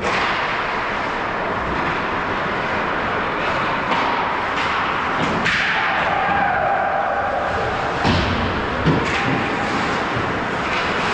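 Ice hockey game sounds on a rink: a steady wash of skate and rink noise, with a couple of sharp thuds about eight and nine seconds in.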